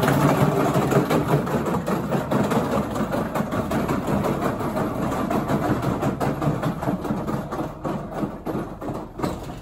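Hard plastic wheels of a toddler's ride-on toy car rolling over brick pavers, a continuous rattling rumble that fades as the car is pushed away.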